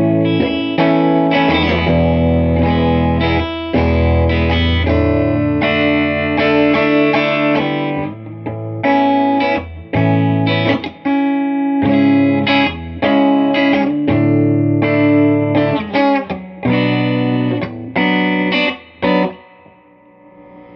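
Electric guitar (Telecaster) playing chords and riffs through a Crate VC5212 Vintage Club 50 tube combo amp at volume 6, loud, with gaps between phrases. The playing stops about a second before the end, leaving the amp's low hum.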